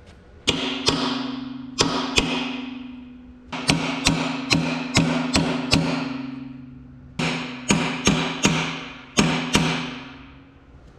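Hammer blows on a chisel driven into the joint between a Clark tractor front axle's cast differential carrier and its housing, to break the joint loose. About twenty sharp metallic strikes come in bursts, each ringing on in the heavy casting.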